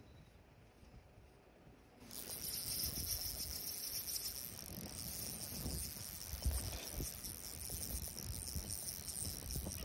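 Spinning reel being cranked on a steady retrieve: a fine, even whirring that starts abruptly about two seconds in, with some low thumps of handling.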